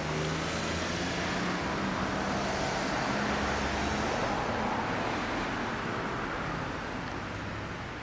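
Yamaha XJR400R-III's air-cooled inline-four idling steadily through a WR'S aftermarket silencer. A passing road vehicle's rushing noise swells over it in the middle and fades near the end.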